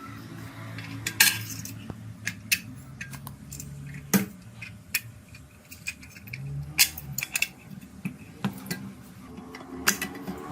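Irregular light metallic clinks and clicks of small metal parts being handled and fitted together, over quiet background music.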